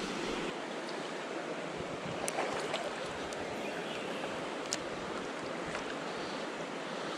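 Steady rushing of a flowing river's current, with a few faint sharp clicks about two and a half and four and a half seconds in.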